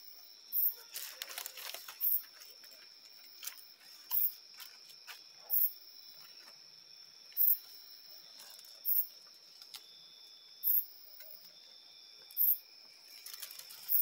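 Night insects: a steady high-pitched cricket-like trill, with a louder, very high chirp repeating about every one and a half to two seconds. Light rustling of dry leaves about a second in and again near the end.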